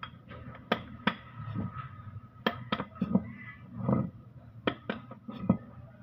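Irregular sharp metallic knocks and clinks, several in a row, from a hammer and steel Mitsubishi Canter gearbox parts being handled and struck on a concrete floor, with a few duller thuds between them.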